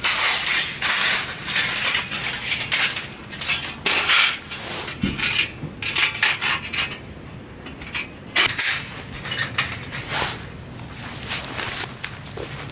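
Wire grate and thin metal panels of a folding camp grill clinking and rattling against each other as they are handled and fitted together, in a run of irregular clatters.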